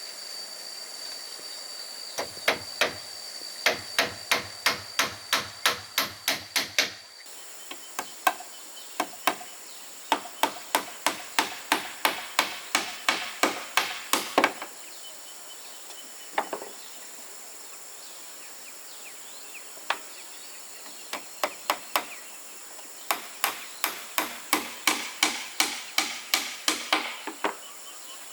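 Hammer blows in quick runs of about three strikes a second, with pauses between runs, typical of driving nails into wood. A steady high insect buzz runs behind them.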